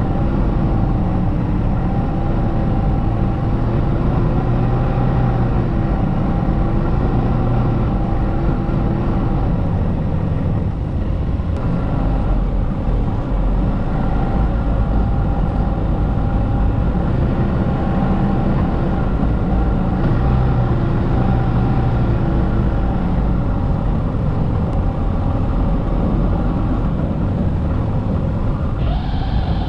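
Snowmobile engine running steadily under way, its note wavering a little up and down, with a higher whine rising near the end.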